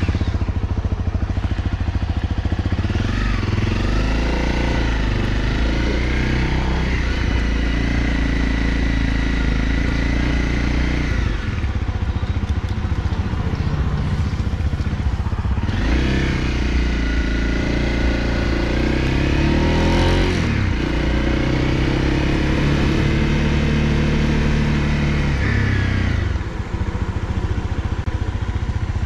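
Honda CRF250L single-cylinder four-stroke engine running under way: its note climbs as it accelerates, holds steady, then falls off as the throttle closes, several times over.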